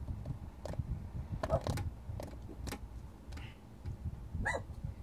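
Small Caframo Dragonfly desk fan's plastic blades clicking and knocking irregularly as a cat paws at them while it runs, with the paw stalling the blades; a low steady motor hum underneath.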